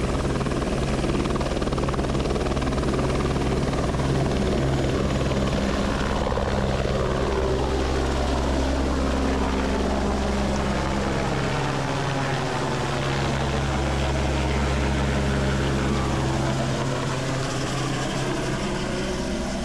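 Light single-rotor helicopter running at full power as it lifts off and flies low overhead, a steady loud rotor and engine noise that grows a little fainter near the end.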